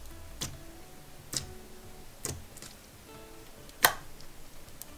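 Soft background music with a few sharp pops about a second apart as clear slime packed with neon foam beads is poked.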